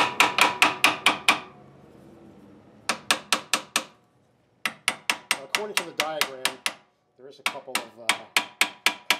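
Hammer tapping steadily on the metal cross-feed bearing housing of a Clausing 8520 milling machine, about five sharp, ringing taps a second in runs of a second or two with short pauses, to work the stuck housing loose off its locating pins.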